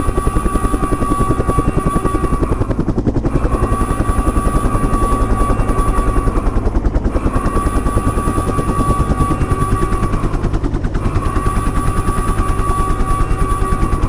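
Edited bus horn sound effect: four long horn blasts of about three and a half seconds each, with short breaks between them, over a fast, steady pulsing chop.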